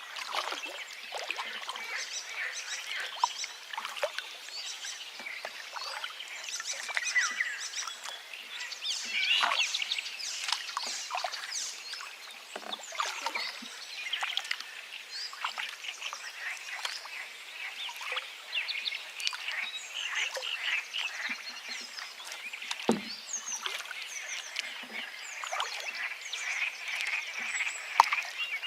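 Forest ambience: many birds chirping and calling in a dense, overlapping chorus over the steady rush of a river.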